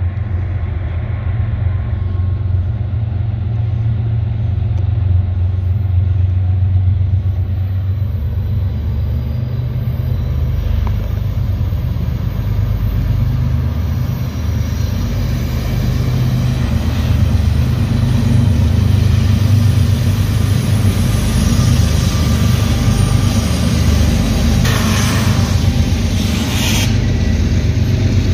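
Union Pacific freight train's diesel locomotives rumbling steadily and slowly building. Double-stack container cars roll past near the end, with two short bursts of hiss.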